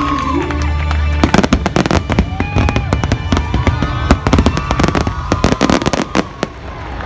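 Fireworks finale barrage: a dense run of sharp bangs and crackling bursts starting about a second in, thinning out near the end, over loud show music.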